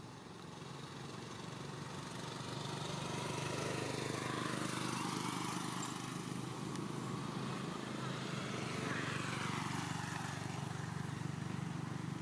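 A motor engine hums, growing louder over the first few seconds and then holding steady. Its tone sweeps down and back up the way a passing or manoeuvring vehicle's does.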